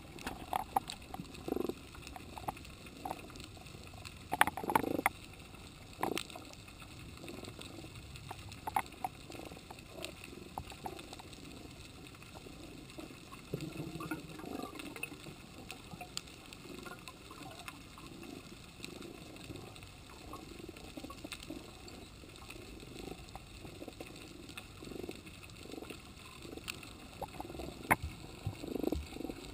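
Underwater sound picked up through an action camera's waterproof housing: a muffled wash of water with irregular knocks and clicks, the loudest a cluster about four to six seconds in and another near the end.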